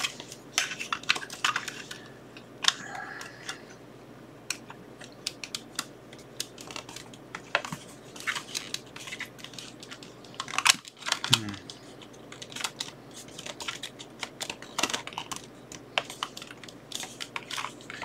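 Scattered small plastic clicks and knocks as a 9-volt battery is worked into the snug battery compartment of a plastic network cable tester. A short hum of a voice comes about eleven seconds in.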